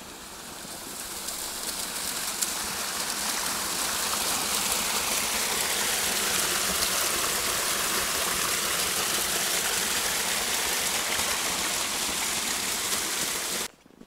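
Steady rush of running water, growing louder over the first few seconds, then cutting off suddenly near the end.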